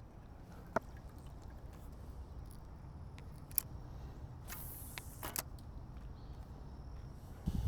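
Faint handling noise aboard a kayak: a few sharp clicks, a short hiss a little past halfway with a second brief one just after, and low knocks near the end, over a low background rumble.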